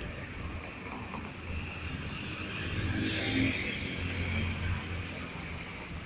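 A motor vehicle passing: its noise swells to a peak a little past the middle and then fades, over a steady low hum.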